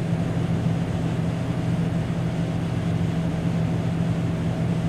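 A steady low mechanical hum with a constant hiss over it, unchanging throughout.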